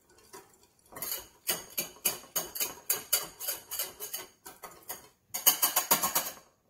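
Wire balloon whisk beating egg yolks in a small ceramic bowl, its wires clicking and scraping against the bowl in quick strokes, about three or four a second, loudest near the end.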